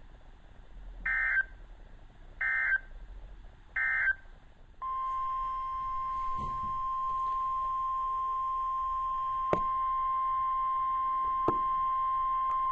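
Emergency Alert System signal: three short, harsh digital data bursts about a second and a half apart, then a long steady alert attention tone that begins about five seconds in, with two faint clicks during it.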